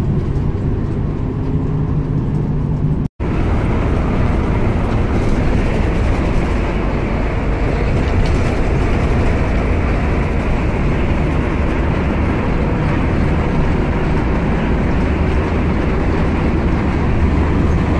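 Steady engine and road noise inside a coach bus's cabin while it drives on a highway. About three seconds in the sound drops out for an instant, then resumes brighter.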